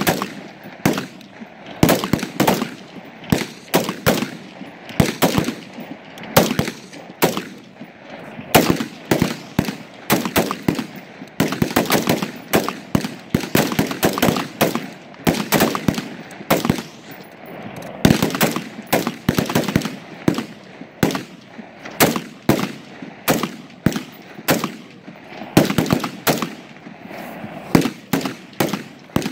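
Rifle fire from several shooters on a range: single shots in a quick, uneven stream, often overlapping, each with a short echo.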